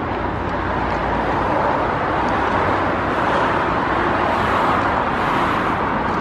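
Steady road traffic noise, a continuous wash of tyre and engine sound with no single vehicle standing out, swelling slightly midway.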